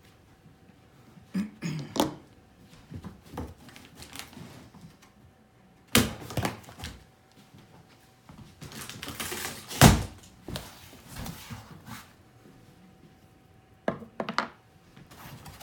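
A large cardboard shipping box being opened by hand: scattered knocks and thuds of cardboard flaps, a sharp thump about six seconds in, a couple of seconds of rough scraping and rustling with a loud thump in the middle, and a few more knocks near the end as the flaps are folded open.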